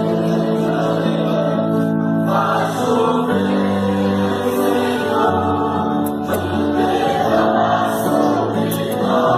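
Church choir singing a gospel song with musical backing, holding long sustained chords.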